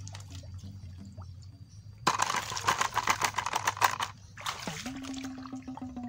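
Muddy pond water splashing and draining through a woven bamboo fish sieve, in a loud crackling burst about two seconds in and a shorter one about four and a half seconds in.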